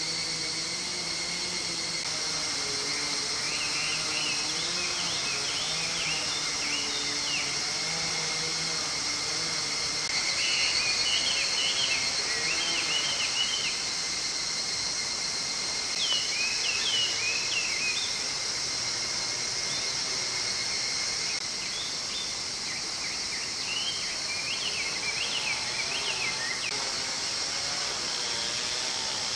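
A steady, high insect drone runs throughout. Over it come four spells of quick, chirping bird calls.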